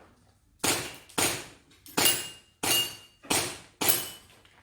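Six quick airsoft pistol shots at a steady pace, about half a second to just under a second apart; several leave a brief, thin metallic ring.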